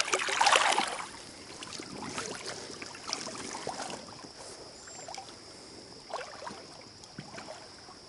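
Splashing in shallow river water as a released king salmon kicks free of the hands: a burst of splashes in the first second, then lighter, scattered splashes and trickling as the fish swims off.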